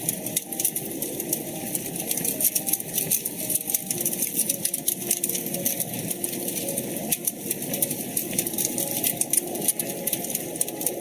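Wood fire crackling in a fireplace: dense, irregular sharp pops and snaps over a steady hiss.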